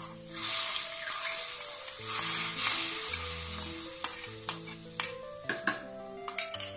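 Hot coconut-oil tempering of mustard seeds and browned shallots poured into a pot of curry, sizzling loudly for about four seconds. After that comes a series of sharp clinks of a spoon stirring against the pot.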